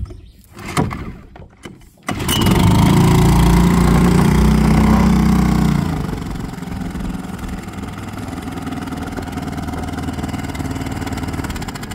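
Honda 2.3 four-stroke, air-cooled outboard motor being pull-started with its recoil cord, catching about two seconds in. It runs fast and loud at first, then drops to a lower, steadier idle about six seconds in.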